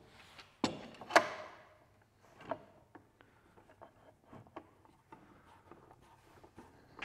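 Sharp knocks of wood and metal, the loudest about a second in, then a run of faint, irregular clicks: clamps and hold-downs being handled and taken off a freshly glued-up board.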